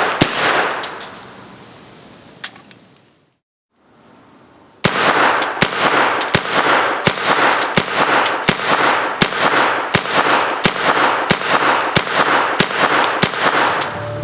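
CMMG Guard 45 ACP blowback carbine with a 16-inch barrel and muzzle brake, firing. A couple of shots come at the start; then, after a brief break, a long string of rapid semi-automatic fire at about three shots a second.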